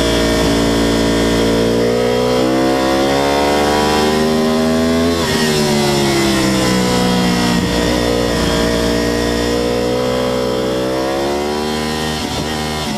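Onboard sound of a sport motorcycle at track speed: the engine's revs climb steadily, drop suddenly about five seconds in, climb again, and fall sharply twice more near the end, over steady wind noise.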